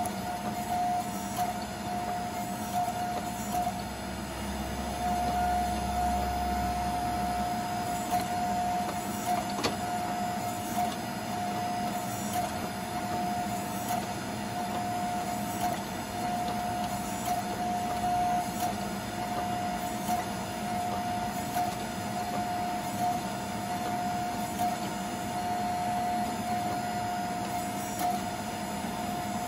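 Electric motor and hydraulic pump of a 24-ton hydraulic press running steadily while the ram squeezes a hot steel billet, giving a constant mid-pitched tone over a low hum.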